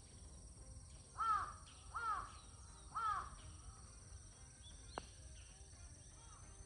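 A crow caws three times, about a second apart. A couple of seconds later comes a single short click of a golf club striking the ball on a short chip-and-run stroke.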